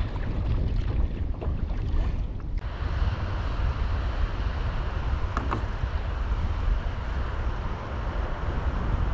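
Wind buffeting the microphone over sea water, a steady low rumble with the wash of water beneath it and a couple of faint ticks.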